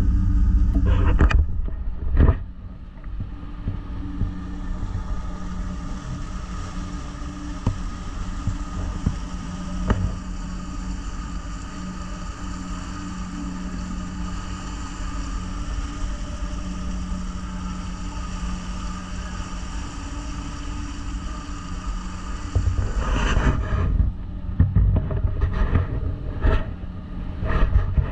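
Boat engine running steadily under way while towing another boat, a steady drone with a held low tone. Heavy low rumbling comes in at the start and again from about 22 seconds in.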